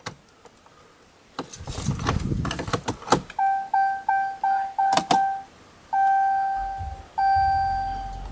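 Keys jangling and clicking as the key fob is worked at the ignition of a 2016 Ram 2500, then the truck's warning chime sounding: a run of quick beeps, then longer held tones, with the cluster showing the driver's door open. A low hum comes in under the longer tones; the engine is not yet running.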